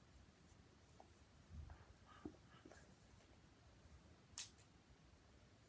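Near silence: faint handling noises with a few soft taps, then one short, sharp click about four and a half seconds in.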